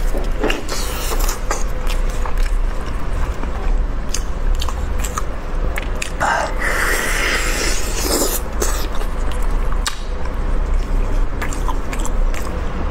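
Biting and chewing of red-braised beef rib meat: close mouth sounds with many small clicks, and a louder stretch about six to seven seconds in.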